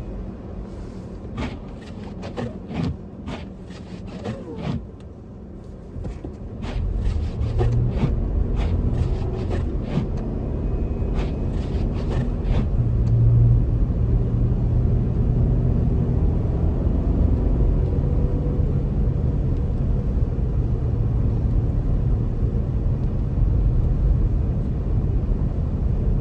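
Car on the move: a low, steady road-and-engine rumble that grows louder about six seconds in, with a scatter of short clicks and knocks during the first half.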